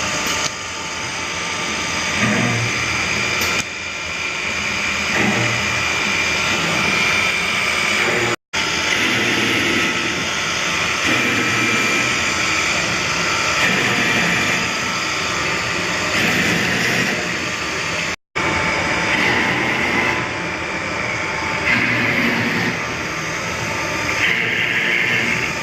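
PTP woodworking CNC router running: steady machine noise with a whine that keeps shifting in pitch. The sound drops out completely twice, briefly, about a third and about two-thirds of the way through.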